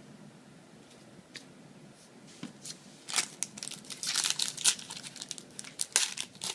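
Foil trading-card booster pack wrapper crinkling and being torn open: quiet at first, then a dense run of sharp crackles from about three seconds in.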